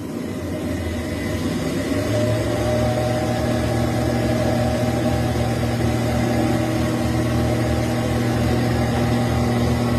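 A machine running with a steady, throbbing hum that builds up over the first two seconds and then holds steady.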